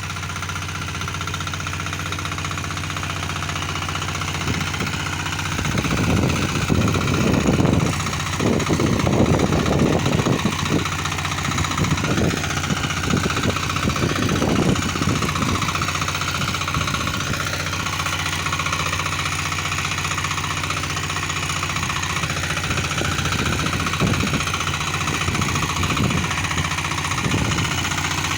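Small diesel engine of a mini ploughing machine running steadily. It gets louder and rougher, with dense knocking, from about six seconds in to about fifteen seconds, then settles back.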